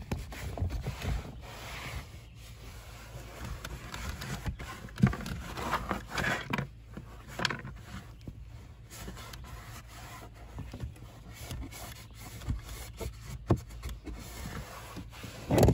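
Microfiber towel rubbing and wiping over a plastic truck dashboard, with scattered light knocks and a louder thump near the end.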